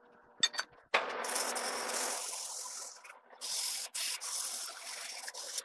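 Fine emery cloth rubbed by hand against a freshly bored steel part to polish it: two stretches of scratchy rubbing, the first starting about a second in, the second after a short pause.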